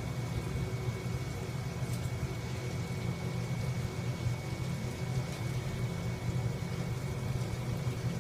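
Steady low background rumble with a faint, thin, high steady whine above it.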